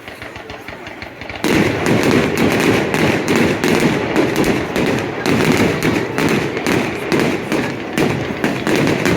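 Fireworks: a few scattered pops, then about a second and a half in a sudden, dense barrage of rapid crackling bangs that keeps going without a break.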